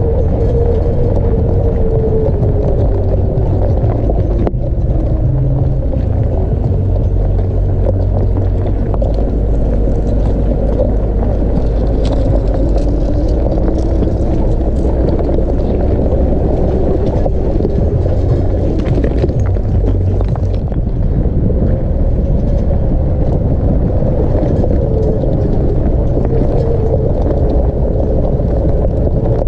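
Off-road SUV driving slowly over a rocky gravel track: the engine runs steadily, its pitch slowly drifting up and down with the throttle, while the tyres crunch and tick over loose stones, heard from a camera mounted on the vehicle's outside body.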